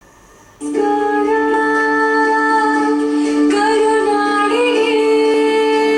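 Music with long, held notes starting about half a second in and shifting to new notes about halfway through.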